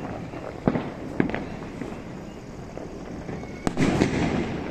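Firecrackers and fireworks going off across the city: steady distant popping and crackling, with two sharp bangs in the first second or so and a quick cluster of louder bangs near the end.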